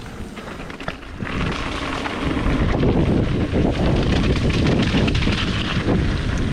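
Wind buffeting the microphone over the rumble of a mountain bike rolling along a wet trail, growing louder from about a second in and then holding steady.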